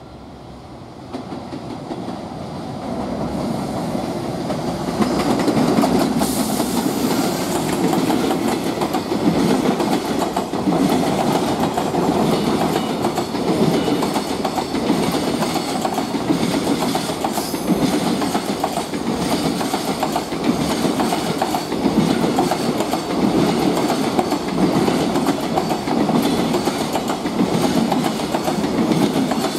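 An EF210 electric freight locomotive approaches and passes, growing louder over the first few seconds. A long train of container wagons then rolls by, its wheels clattering over the rail joints in a steady rhythm that swells about every two seconds.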